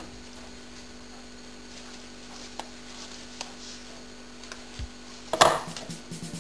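Plastic cling film being pulled over a glass bowl and torn from its roll: a sharp crinkling rustle about five seconds in, after a few faint clicks over a low steady hum.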